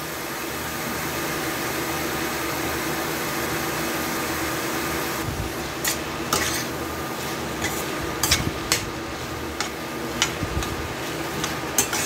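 Steady hum of an induction cooker under a stainless steel pan, then, from about five seconds in, a metal spatula scraping and clinking against the pan as chopped chicken is stirred.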